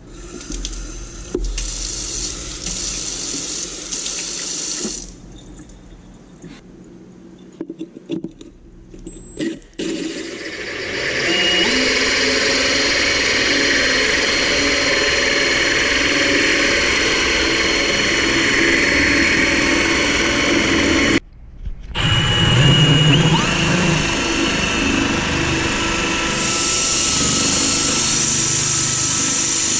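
A drill spinning a diamond hole saw that grinds into a quartz countertop. The steady grinding with a thin whine sets in about a third of the way through, cuts out briefly about two-thirds of the way in, then runs on.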